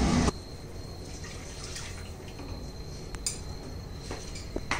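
Faint dripping and trickling of water in the kitchen, with a few light clicks of utensils and a thin steady high whine.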